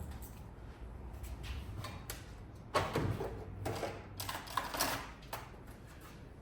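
Cordless hair clipper running with a low hum during a haircut, with a run of scratchy, clicky rustling bursts in the middle as it works.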